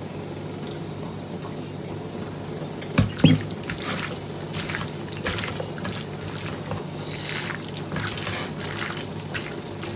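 Hands squishing and kneading raw chicken in a wet browning-sauce marinade in a bowl: a run of short wet squelches from about three seconds in. A sharp knock comes about three seconds in.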